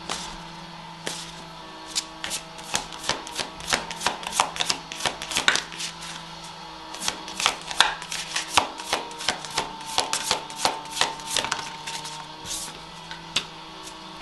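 Tarot cards shuffled by hand: a long run of quick, irregular card snaps and flicks, several a second. Soft background music with sustained notes plays underneath.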